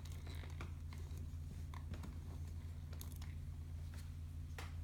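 A few faint, scattered clicks of small plastic Lego pieces being handled, over a steady low hum.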